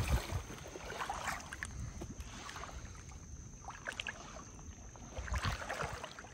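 Water sloshing and lightly splashing around a person wading waist-deep in chest waders, with a brief thump at the start.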